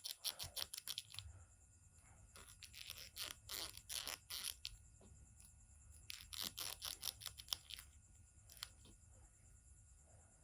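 Plastic action figure and accessory being handled and fitted together: faint clicks and scrapes of plastic parts in several short bursts.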